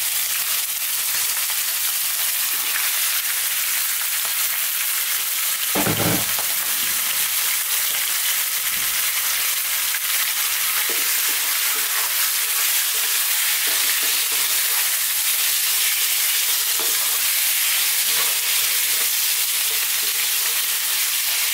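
Bone-in lamb pieces frying in hot sunflower oil with whole spices, a steady sizzle as the meat sears. A single thump about six seconds in.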